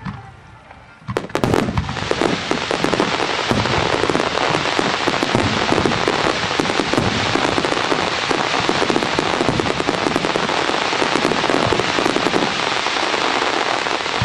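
Fireworks barrage: after a single sharp pop, many shells and crackling stars burst together from about a second in, making a loud, dense, unbroken crackle.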